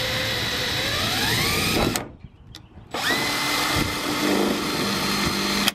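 Cordless drill boring through a sheet-metal car trunk lid. It runs in two goes: first its whine climbs in pitch and stops about two seconds in, then after a short pause it runs again at a steady pitch and stops just before the end.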